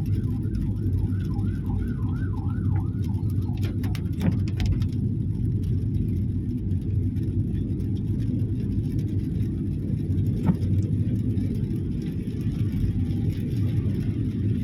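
Steady road and engine rumble of a car driving in the rain. For the first three seconds a distant emergency siren yelps rapidly up and down, about three cycles a second, then stops. A few sharp clicks follow.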